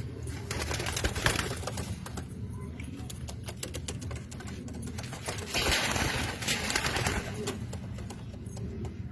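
Domestic pigeons cooing, with two louder stretches of rustling and clicking, about half a second in and again near the middle.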